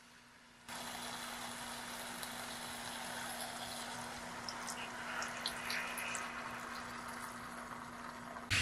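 Water pouring into a pot of cooking beef and onions, a steady rush of liquid starting about a second in.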